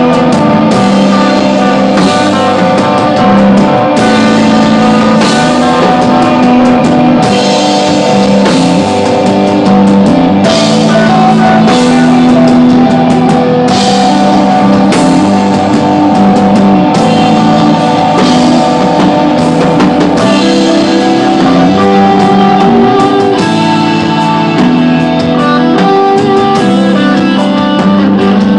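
Rock band playing live and loud: electric guitars hold and repeat sustained notes over bass, with drum kit and cymbal crashes every couple of seconds.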